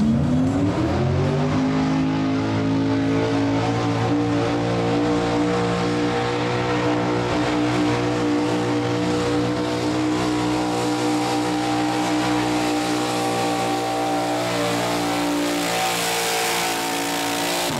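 Modified gas pulling truck's engine at full throttle under load as it drags the sled. The revs climb over the first second or so, then hold high and steady.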